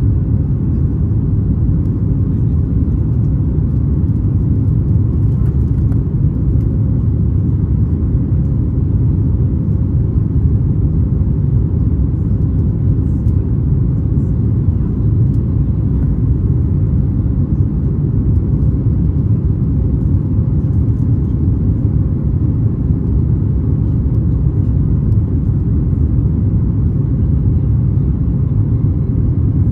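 Steady low rumble of a Boeing 737 MAX 8-200's CFM LEAP-1B engines and airflow heard inside the passenger cabin, with a faint steady hum on top and no change in level.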